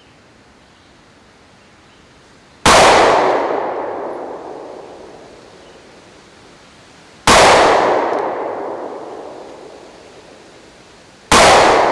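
Three 9mm pistol shots from a Sig Sauer P365, about four seconds apart, each a sharp crack that echoes and dies away over a couple of seconds.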